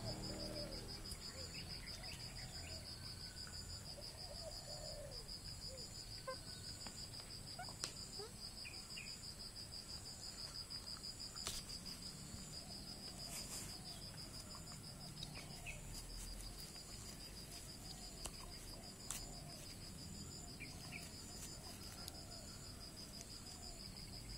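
Crickets chirring: a steady, high-pitched trill of rapid pulses, with a few faint clicks.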